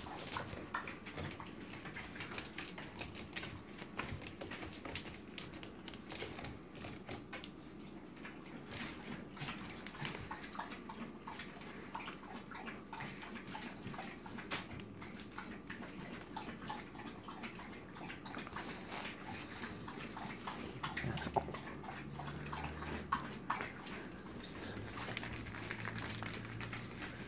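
Puppies scuffling and playing on a plastic grid floor and blankets: a steady run of small clicks, scratches and rustles.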